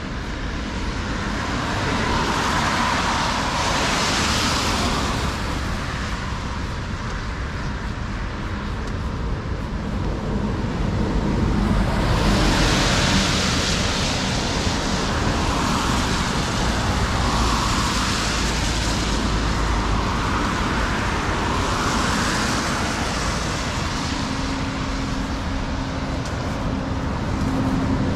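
Road traffic: a steady rush of tyres and engines, with cars passing one after another, each swelling and fading, about four times. Near the end a low steady engine hum joins in.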